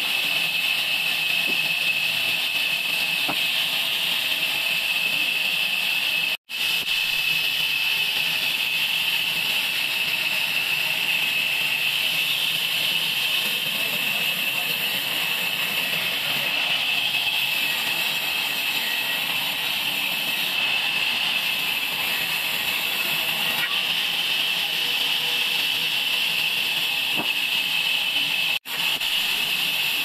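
A vertical band saw running while ripping a wide wooden slab, with a steady high-pitched hiss and whine. The sound cuts off abruptly for a moment twice, about six seconds in and near the end.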